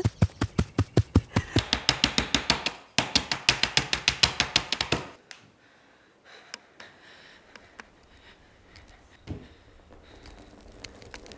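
Rapid run of sharp snapping clicks, about six a second, as grass is torn up by hand; it stops suddenly about five seconds in. Then quiet room tone with a single soft thump near the end.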